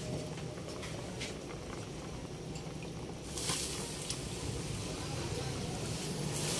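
Pot of sinigang broth bubbling at a boil, with a steady low hum underneath. A brighter hiss comes in about three seconds in, as the pot is filled with kangkong (water spinach) leaves.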